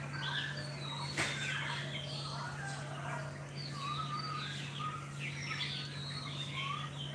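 Many small birds chirping, a dense chorus of short calls, with one sharp click about a second in and a steady low hum underneath.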